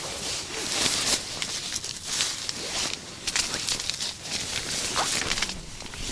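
Rustling and scraping as someone shifts about inside an ice-fishing tent. Gloved hands and clothing brush over the tent fabric and the scratched ice floor in quick, irregular bursts.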